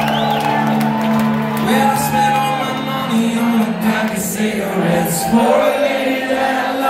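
Live rock band playing, with singing over the music.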